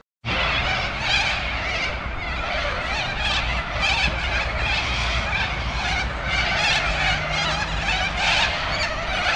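A large flock of white cockatoos calling in flight: a dense, continuous chorus of many overlapping screeches, with a steady low rumble underneath.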